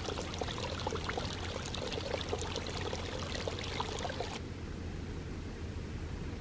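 Small creek trickling and bubbling over rocks. About four seconds in, the water sound drops and turns duller.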